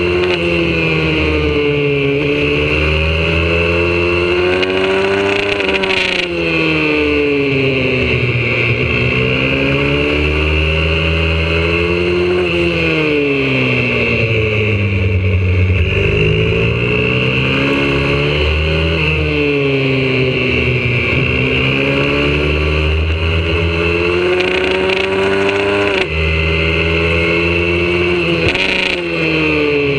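YCF 125cc four-stroke single-cylinder pit bike engine heard up close from the bike itself, revving under acceleration with the pitch climbing for several seconds and then dropping off, over and over as the rider goes around the track.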